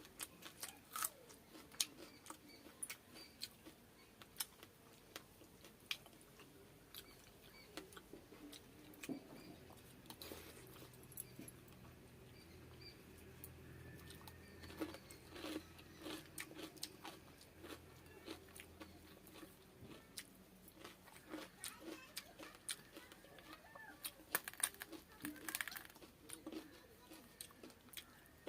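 A person eating close to the microphone: irregular mouth clicks, chewing and crunching of food such as fried fish, fried badi and raw onion with fermented water rice. The clicks come thickest about 24 to 26 seconds in.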